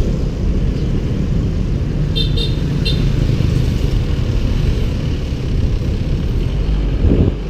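Wind buffeting and rumbling on the microphone of a bicycle-mounted camera while riding, mixed with road noise. A few short high chirps come about two to three seconds in.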